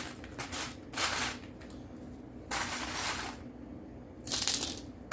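Loose plastic Lego bricks clattering in four short bursts as pieces are handled and sorted.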